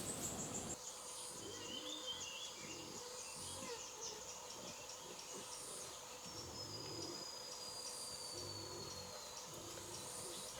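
Faint wild outdoor ambience: a steady insect drone with a few short bird chirps, and one long falling whistle near the end.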